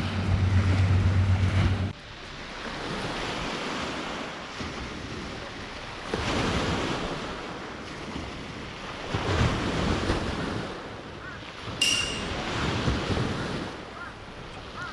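Sea waves washing onto the shore, swelling and fading every few seconds, with wind buffeting the microphone. A steady low hum runs for the first two seconds and cuts off suddenly, and a brief high note sounds near the end.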